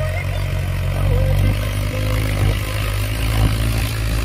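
Farm tractor's diesel engine running steadily under load as it pulls a tine cultivator through dry soil, its tone shifting about a second and a half in.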